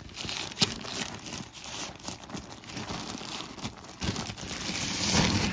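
Plastic DHL courier mailer crinkling and tearing as it is ripped open by hand, with one sharp click about half a second in and a louder stretch of rustling near the end.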